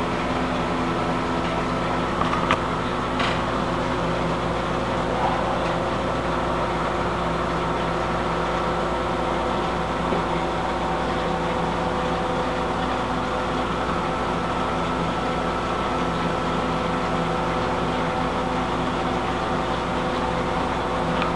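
Steady hum and whir of running aquarium equipment, such as pumps and filtration, with a constant hiss and several steady tones. Two faint clicks come a few seconds in.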